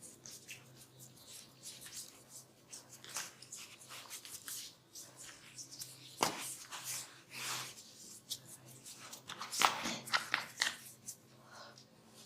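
Hands working on bare skin in a massage: a run of rubbing, tapping and clicking sounds, with sharper, louder hits about six seconds in and again near ten seconds, over a faint steady low hum.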